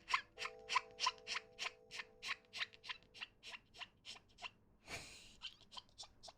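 A person making short squeaky mouth noises in quick succession, about three a second, with a breathy hiss about five seconds in. Soft held background music notes sit underneath.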